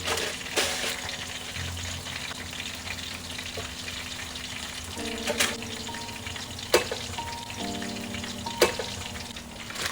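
Food sizzling in hot oil in a pan, a steady crackling hiss, with several sharp clinks of a utensil against the pan.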